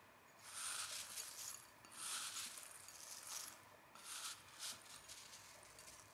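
Fingers scooping and stirring crisp fried Indian snack sticks in a ceramic bowl: dry rustling with light clinks, in about four short bursts.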